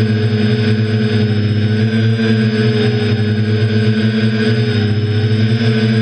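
Hobby quadcopter's electric motors and propellers humming steadily over a hiss, heard loud and close from a camera mounted on the craft; the pitch wavers slightly midway.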